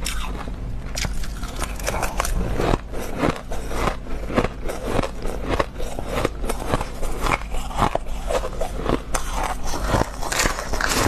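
Close-miked crunching and chewing of a mouthful of freezer-frost ice: a dense, irregular run of crisp crackles. Near the end a metal spoon scrapes and scoops through the ice in the metal bowl.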